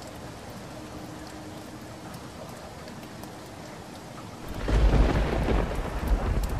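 Steady rain hissing, then about four and a half seconds in a loud clap of thunder that rumbles deep for about two seconds before cutting off suddenly.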